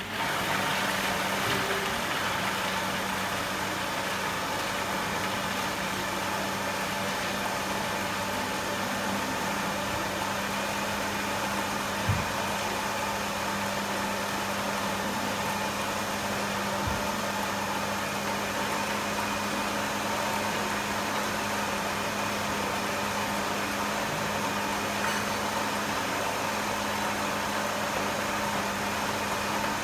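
Food processor motor running steadily with a constant hum, blending a thick date-and-nut candy mixture; a couple of brief knocks about 12 and 17 seconds in.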